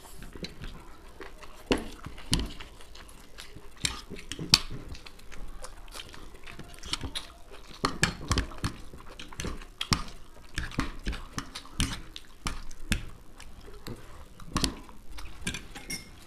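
Close-up eating sounds: forks clicking and scraping against plates as noodles and rice are picked up, with chewing. The clicks come irregularly and often.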